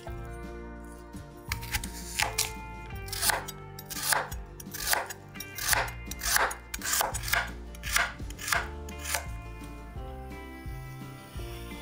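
Chef's knife slicing a raw carrot on a wooden cutting board: a run of cuts, about two a second, that stops near the end. Background music runs underneath.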